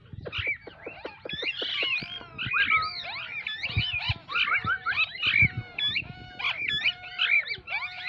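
Parakeets chirping: many quick, squeaky up-and-down calls, several a second and overlapping, with a few light knocks in the first second.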